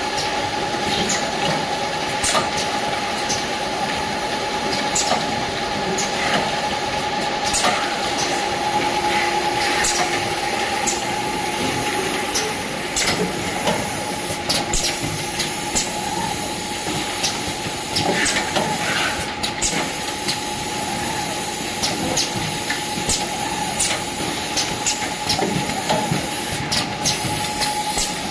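Automatic stand-up pouch sorting, counting and boxing machine running: a steady mechanical hum with a constant whine, hiss, and irregular clicks and clacks.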